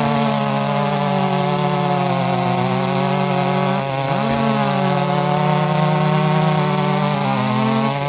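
Two-stroke chainsaw engine running at high revs, its pitch dipping briefly and recovering about every four seconds.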